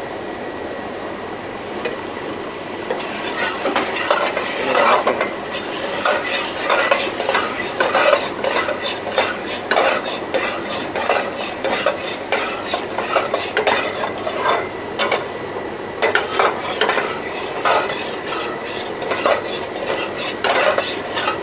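Flat metal spatula stirring and scraping thick, grated ash gourd halwa around a large stainless steel pot, about one to two strokes a second from about three seconds in. The freshly added ghee sizzles underneath as the halwa nears the end of cooking.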